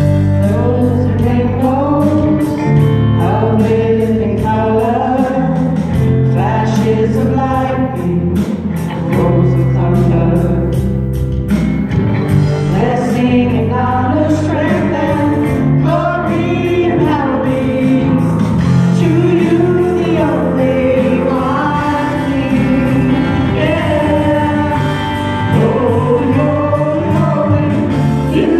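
Live worship band playing a praise song: acoustic guitar and bass notes under several voices singing the melody together, with a steady ticking beat through the first twelve seconds or so.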